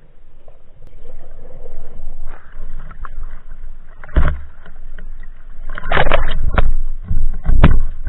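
Muffled water splashing and knocking picked up by a waterproof action camera in the water. Quiet at first, then a loud burst about halfway through and several more in the second half.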